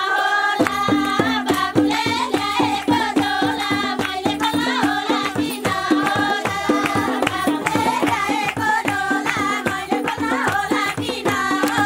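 Folk song with singing over a hand drum's steady beat. The drum comes in about half a second in, after a moment of singing alone.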